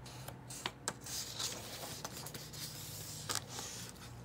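A page of a hardcover picture book being turned by hand: paper sliding and rustling, with a few short crisp snaps of the page.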